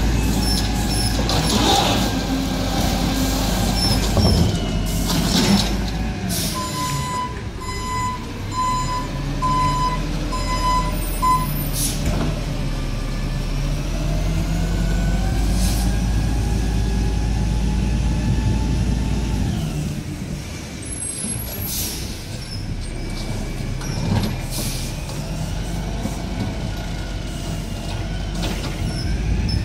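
Peterbilt 320 garbage truck with an Amrep Octo automated side loader working: the engine revs with rising and falling pitch as the hydraulic arm finishes dumping a recycling cart and the truck moves off. A run of about six evenly spaced beeps sounds about a quarter of the way in, and short sharp hisses of air brakes come now and then.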